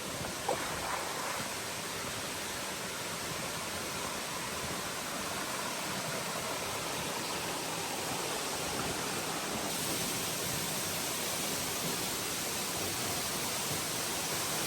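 Steady rushing of flowing water over rocks, with a light knock or two near the start.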